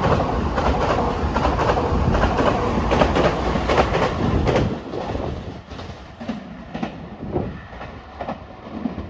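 Electric commuter train pulling away from the platform, wheels clacking over the rail joints. The sound drops off sharply about five seconds in as the last car passes, leaving a fainter rumble.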